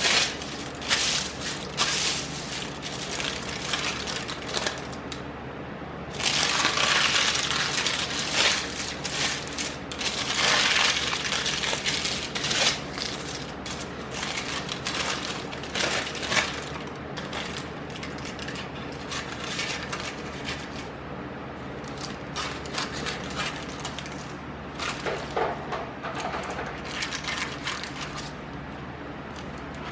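Vacuum cleaner running over a floor, with dense irregular crackling and rattling as grit and debris are sucked up.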